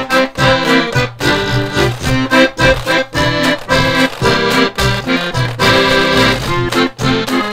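Instrumental music with an accordion-like sound, playing a steady rhythm of short chords with brief breaks about once a second.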